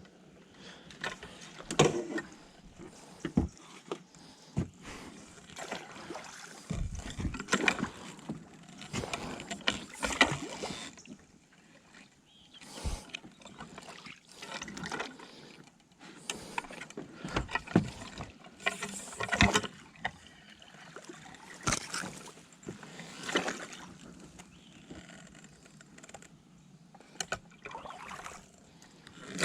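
Irregular knocks, rustles and water sounds from a small fishing boat being worked by hand, with a few sharp clicks.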